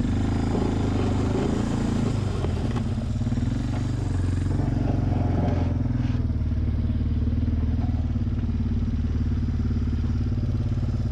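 2004 Suzuki Eiger 400 ATV's single-cylinder four-stroke engine running steadily under way while pushing a snowplow blade. Rougher scraping noise from the blade working through snow comes in during the first few seconds and again about five seconds in.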